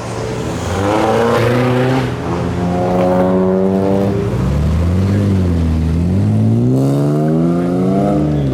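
Modified car engines revving as the cars pull away: the engine note rises about a second in, holds steady, dips around five seconds in, then climbs again near the end.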